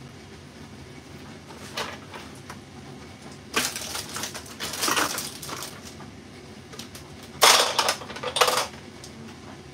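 Hard kitchen items clattering and rattling as they are handled, in three bursts: a short one about two seconds in, a longer one around four to five seconds, and the loudest about seven and a half to eight and a half seconds in, over a steady low hum.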